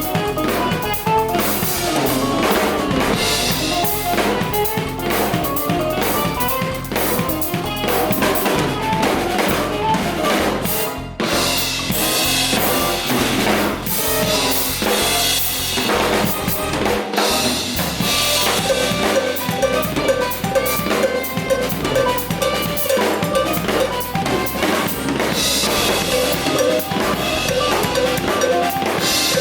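Drum kit played at full tilt, snare, bass drum and cymbals driving a steady groove, over music with bass and other pitched instruments. The playing stops briefly about eleven seconds in.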